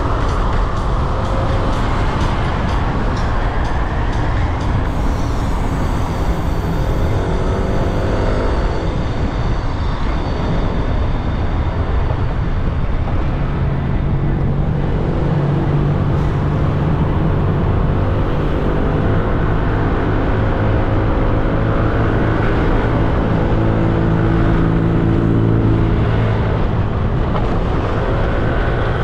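Yamaha Nmax 155 scooter's single-cylinder engine running under way, its pitch rising and falling several times as it speeds up and slows. A loud, steady rush of wind and road noise runs under it.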